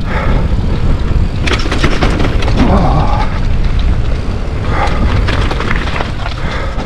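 Pole Evolink mountain bike rolling down a rocky trail: a steady low rumble, with many sharp knocks and rattles as the bike goes over rock.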